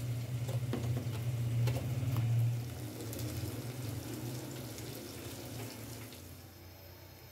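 Boiled minced meat being scraped from a steel bowl into a pot of frying onion-tomato masala: a sizzle, with a few clinks of the knife against the bowl, over a low steady hum. It fades toward the end.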